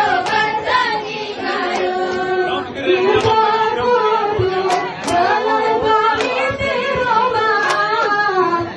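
A group of young women singing a Gayo Bines chant in unison, in long held notes that glide up and down, broken by scattered sharp hand claps.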